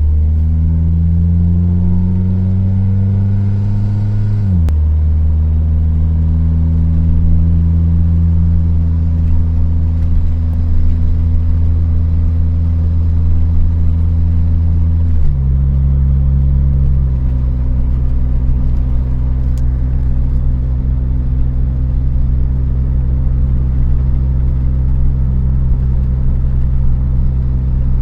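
Honda del Sol's D16Y8 1.6-litre four-cylinder engine running: the revs climb for about four seconds, drop back, hold, then step down to a lower steady speed about halfway through. The engine is worn and carries a tapping noise from bearing wear and low oil pressure, which new bearings and a new oil pump later cured.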